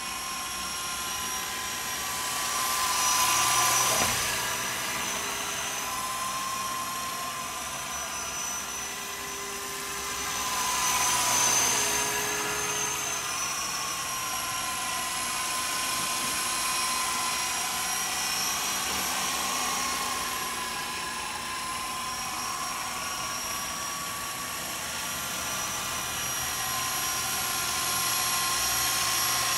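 Battery-powered Walkera Lama 400 radio-controlled helicopter in flight: a steady electric motor and rotor whine whose pitch wavers as it maneuvers. It grows louder twice as the model passes close, about three seconds in and again about eleven seconds in.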